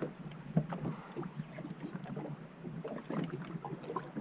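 Sounds aboard a small boat at sea: irregular knocks and splashes of water against the hull over a low steady hum.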